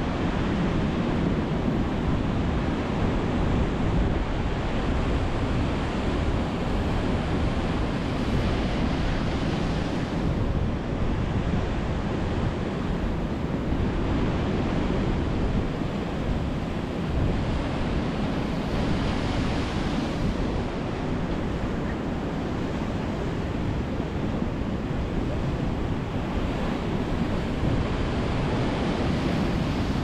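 Sea surf breaking against concrete tetrapods and washing over a pebble shore: a continuous rush of water that swells each time a wave breaks, every few seconds.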